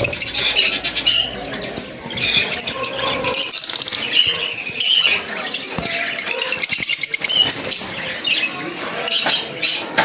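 Many caged lovebirds chattering, a dense mix of overlapping high-pitched chirps and squawks.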